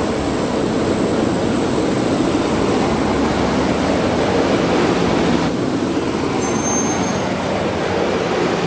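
Steady motor-vehicle noise, engine and road rumble, with a thin high whine running through it.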